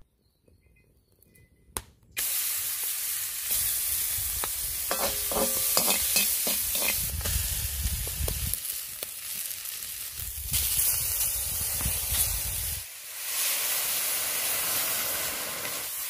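Vegetables frying in olive oil in a hot wok: a loud sizzle starts suddenly about two seconds in and runs on, with stirring and a few clinks of a utensil against the pan. The sizzle dips briefly near the end.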